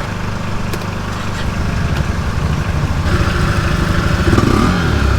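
Engine running steadily close by. About three seconds in it grows louder and a higher whine joins it.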